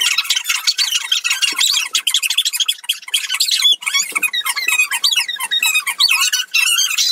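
Several layered human voices chanting and singing, sped up so they come out high-pitched and squeaky like chipmunks, in a fast, dense jumble of quickly changing pitches.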